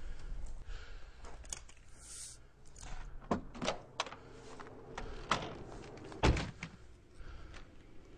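Clicks and thunks of someone getting into a car and handling it, the loudest a heavy door-like thunk about six seconds in, over a low hum.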